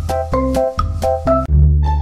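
Background music: a bouncy tune of short, quickly repeated notes. About one and a half seconds in it cuts abruptly to a different tune with a sustained low note underneath.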